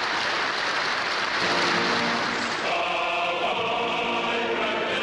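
A large crowd applauding, joined about a second and a half in by a choir of many voices singing long held notes over the clapping.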